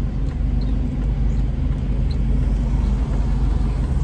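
Car running and moving slowly, heard from inside the cabin: a steady low rumble of engine and road noise.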